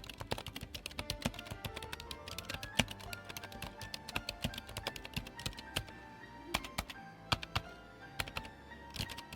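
Typing on a Keychron scissor-switch wireless keyboard: a rapid run of fairly quiet key clicks, several per second, over soft background music.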